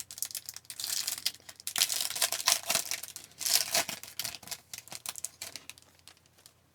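A trading-card pack wrapper crinkling and being torn open by hand, in several rustling bursts over about four seconds, then dying down to light rustles and clicks as the cards are handled.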